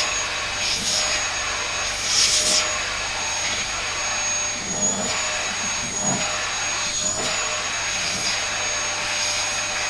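Vacuum cleaner running steadily with a high whine. Its suction hiss surges briefly a few times as the nozzle is worked over a cat's coat.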